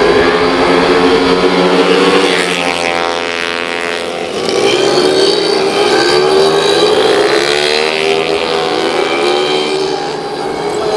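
Several racing 115 cc automatic scooters running flat out, their engines making a high, buzzing note. The pitch rises and falls as the bikes pass close, with a strong sweep about halfway through.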